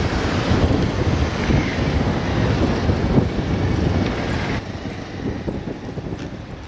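Wind buffeting the microphone: a heavy, irregular rushing noise that drops abruptly and turns quieter about four and a half seconds in.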